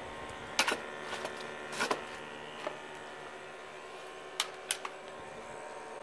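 A handful of sharp clicks and small knocks as a handheld gas meter is handled and hung up, over the steady hum of a running Dewalt DXH12B propane heater.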